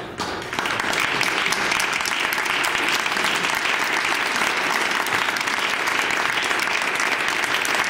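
Audience applauding, starting abruptly in the first half-second and holding steady.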